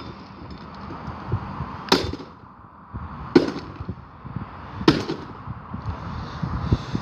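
Three hard blows striking a coffee maker, about a second and a half apart, as it is smashed with a hand-swung weapon.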